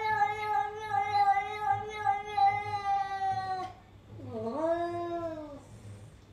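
Domestic cat yowling in a standoff with another cat, a warning call. One long, steady, drawn-out yowl ends about three and a half seconds in; a shorter wavering yowl follows, dipping and then rising in pitch.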